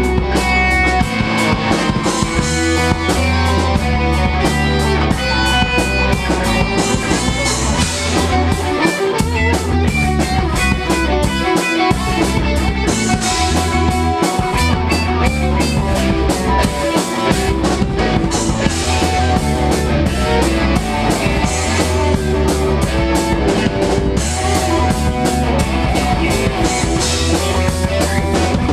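A live band playing together: electric guitar, keyboards and drum kit, with a steady drum beat over a low bass line.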